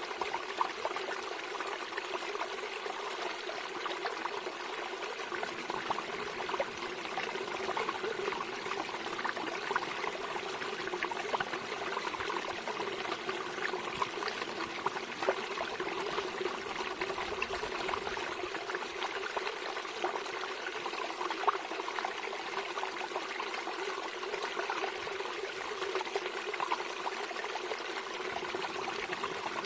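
Running water trickling and splashing steadily, with small droplet ticks scattered through it.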